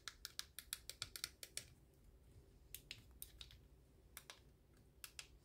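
Buttons on a Midland HH54VP handheld weather radio being pressed one after another, making small plastic clicks. There is a quick run of about six clicks a second for the first second and a half, then a few scattered clicks.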